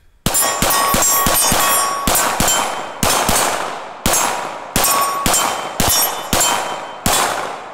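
A fast string of about fifteen pistol shots from a red-dot-equipped Glock, with steel targets ringing after several hits.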